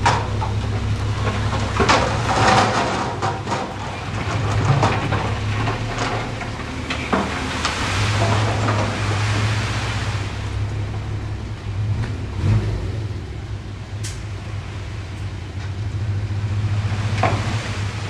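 Heavy earthmoving machine's diesel engine running steadily with a low drone, with irregular scraping and knocks from stones and soil being moved.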